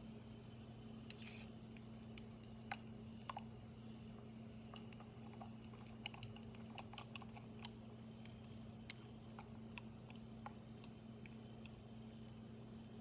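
Steady low electrical hum in a quiet room, with about fifteen faint, scattered clicks and ticks.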